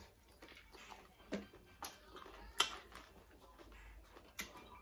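Close-up eating sounds: chewing and wet lip smacks, heard as scattered short clicks, the loudest about two and a half seconds in, with soft handling of rice and food on plates.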